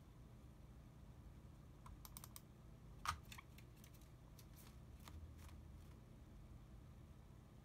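A few scattered light clicks and taps against near silence, with one sharper, louder click about three seconds in.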